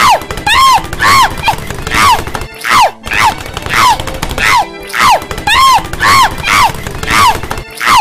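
A cartoon woman's voice crying out in quick, short yelps that fall in pitch, several a second, as she tumbles down stairs, over a low rumbling underlay. The same few seconds repeat in a loop, with a brief break each time it restarts.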